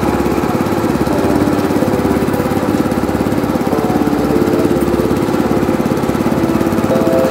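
Small single-cylinder petrol generator engine running steadily with an even, fast beat.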